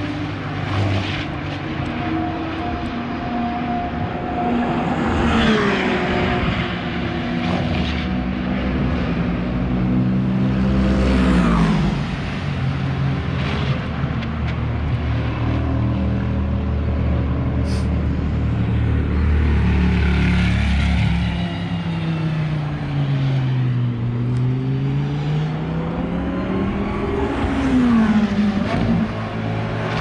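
Track-day cars' engines running hard around Spa's pit straight and Eau Rouge, several engines audible at once. Their revs climb and fall with gear changes, and cars pass by about 5, 11 and 28 seconds in, each one dropping in pitch as it goes past.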